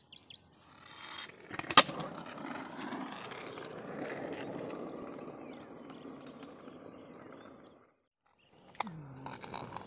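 Skateboard wheels rolling over rough asphalt with a steady gritty rumble, after a sharp clack of the board a little under two seconds in. The sound cuts out briefly near the end, then comes a clack and a short falling tone as the rolling resumes.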